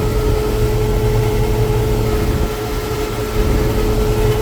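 Combine harvester running: a steady low engine rumble with a steady mid-pitched whine over it.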